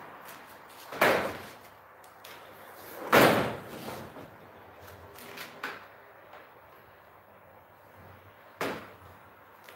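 Knocks and bangs from handling a plastic window frame: three loud knocks, about a second in, about three seconds in and near the end, with a few lighter clicks between.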